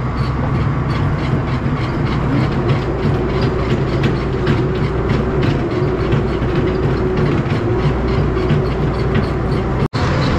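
A farm tractor runs with a steady engine drone and constant loud metallic rattling and clatter, typical of a tractor-driven feed mixer wagon at work. The sound cuts out for an instant near the end.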